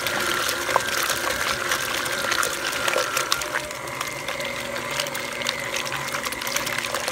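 KitchenAid stand mixer running, its beater churning cream that has just separated into butter and buttermilk. The loose buttermilk splashes and sloshes in the bowl over a steady motor whine that changes pitch a little past halfway.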